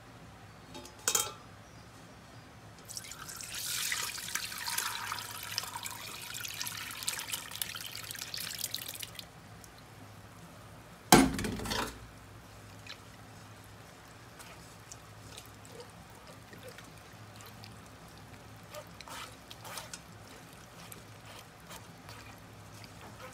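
Pork blood pouring through a plastic mesh strainer into a stainless steel pot, splashing for about six seconds. A loud knock comes about eleven seconds in. Faint scraping and ticking of a spoon working the clotted blood against the strainer mesh follows.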